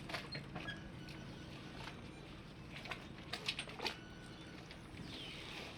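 Harbour ambience: scattered light clicks and knocks with a few brief high squeaks over a low steady background hum, and a curved squeal starting near the end.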